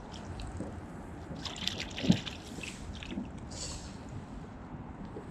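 Water trickling and dripping, with small splashes and clicks, and one sharp knock about two seconds in.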